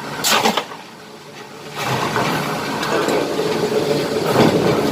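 Machinery running steadily with a low hum, starting about two seconds in and growing louder, after a short hiss near the start.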